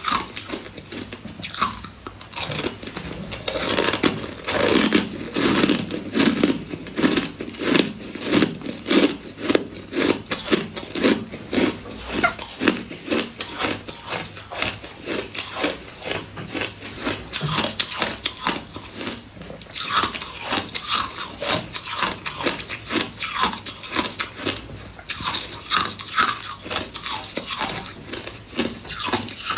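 Close-up crunching of ice in the mouth: repeated bites and fast chewing of frozen freezer ice, a quick run of crisp crunches a few per second, heaviest in the first half.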